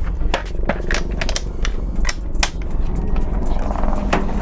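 Sharp clicks and rattles of a plastic drill-bit case being handled and set down, over the steady low thrum of a low-flying military helicopter. The helicopter grows louder near the end, adding a steady hum.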